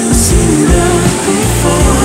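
Background pop music with bass, drums and shifting melody lines.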